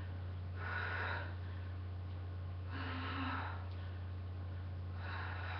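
A woman breathing hard during exercise, a forceful breath about every two seconds, over a steady low electrical hum.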